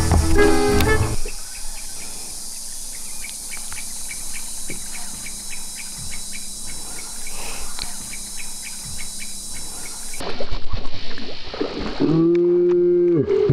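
Outdoor ambience with faint, evenly spaced ticking while a rat-shaped topwater lure is retrieved. About ten seconds in, a bass strikes the lure with a loud splash. A short, loud pitched sound with a bend in pitch at each end follows.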